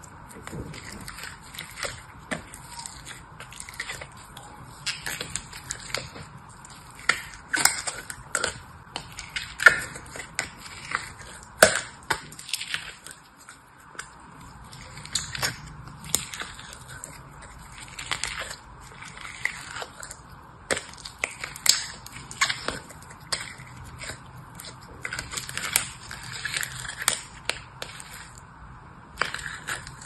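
Fingers squeezing and crushing a crumbly, glitter-coated blue mass in a clear plastic cup: irregular crunches and crackles, with a few sharper, louder snaps scattered through.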